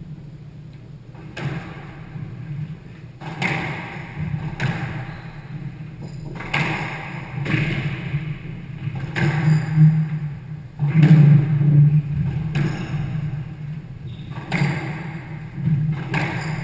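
Squash rally: the ball is struck by the rackets and smacks off the court walls, one sharp hit every one to two seconds.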